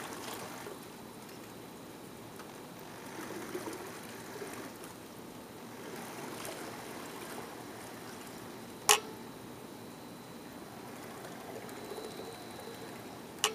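Stern paddlewheel of a scratch-built model towboat, driven by a 7.2-volt cordless-drill motor, churning the water with a steady trickling splash. Two sharp clicks, about nine seconds in and again near the end, are the loudest sounds.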